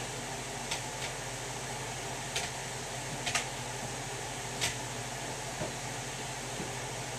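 Steady background hiss, like a fan or air conditioner, with about six faint clicks and taps from a cardboard box being handled.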